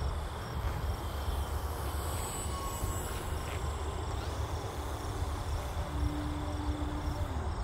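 ParkZone Extra 300 RC plane's electric motor and propeller buzzing faintly in flight over a steady low rumble; the motor tone drops in pitch near the end as the throttle comes back.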